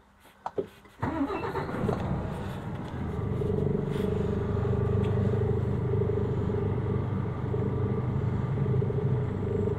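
Mercedes-Benz Actros truck's diesel engine starting about a second in, then settling into a steady idle.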